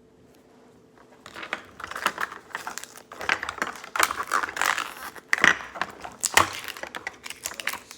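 Small plastic pieces clicking and a plastic wrapper crinkling as a Mini Brands toy capsule is handled and unwrapped: irregular clicks and rustles that start about a second in.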